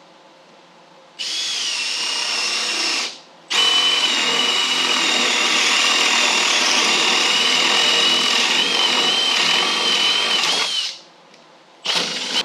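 Power drill boring holes: a steady whine that runs about two seconds, stops briefly, then runs for about seven seconds, with a short final burst near the end. These are the starter holes for cutting out the seat-plate opening.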